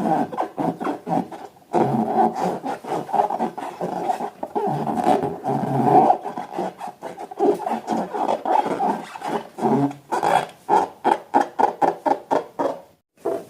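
Hands working rubber balloons and slime, making rubbery rubbing and squeaking sounds in quick irregular pulses that break off briefly near the end.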